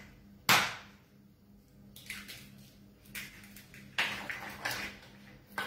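Kitchen handling noises while cracking eggs into a plastic bowl: several short knocks and taps, the loudest about half a second in.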